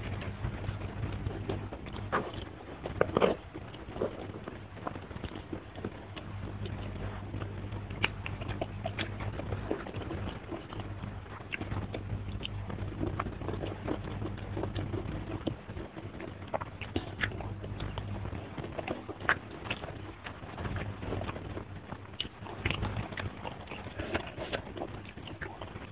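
Close-miked mukbang eating: a person chewing and biting rice, spicy fish and raw vegetables, with wet mouth clicks and smacks, the loudest burst of them about three seconds in.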